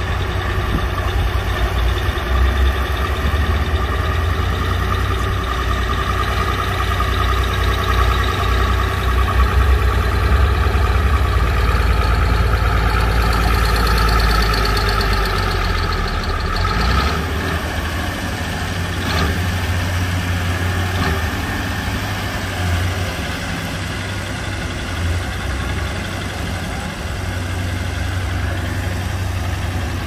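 Komatsu crawler bulldozer's diesel engine running steadily with a heavy, deep rumble. Partway through the rumble drops away and the engine sound eases.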